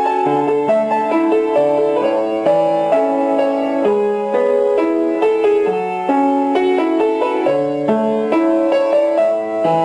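Background piano music: a melody played over chords, with no beat.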